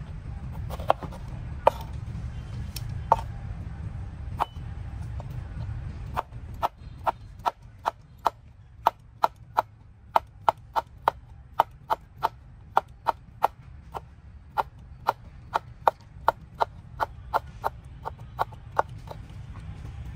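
Repeated sharp chopping strikes: a few scattered blows at first, then a steady run of about two a second from about six seconds in until near the end, over a low background rumble.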